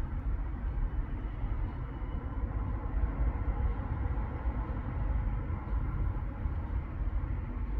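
Distant street traffic: a steady low rumble of many cars, vans and buses with no single vehicle standing out.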